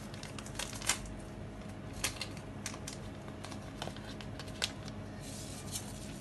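Scattered light clicks and ticks over a steady low hum, then a short rustling hiss near the end as vanilla powder is shaken from a small sachet into the pot of sugar syrup.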